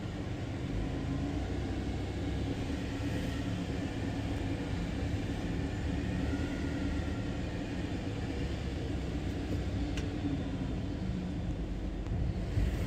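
Steady low rumble of a car driving, engine and road noise heard from inside the cabin, with a faint steady hum.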